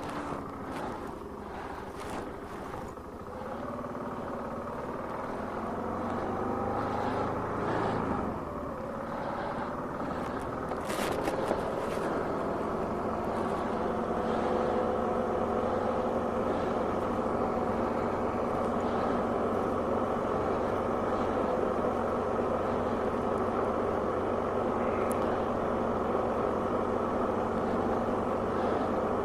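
Car engine and road noise heard from inside the cabin while driving, growing louder as the car picks up speed from about six seconds in, then holding a steady drone.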